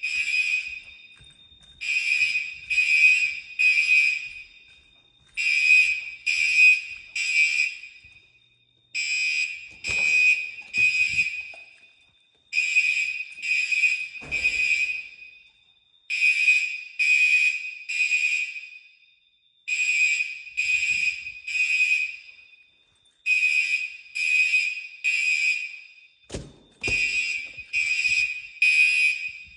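Fire alarm horns sounding the temporal-three evacuation pattern: three short blasts, a pause, then three again, repeating about every three and a half seconds. A brief knock comes near the end.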